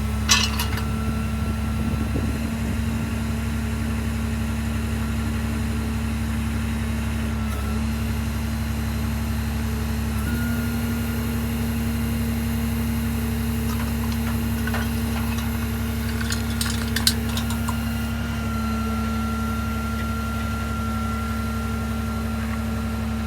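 2012 Peterbilt 330 truck's diesel engine idling steadily, with two brief sharp clicks, one just after the start and one about 17 seconds in.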